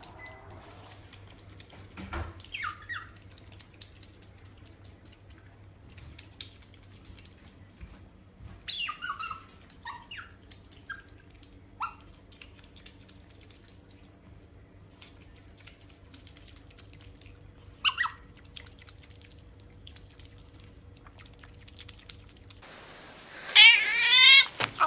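A cat gives a few short, scattered meows and chirps. Near the end comes a much louder, wavering yowl.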